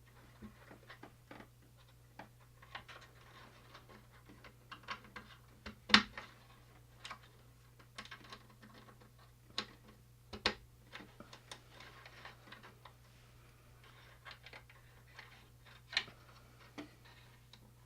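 Scattered small clicks and taps of push-on quick-connect terminals being pulled off and pushed back onto a speaker's terminal tabs, the sharpest snap about six seconds in, with others near ten and sixteen seconds.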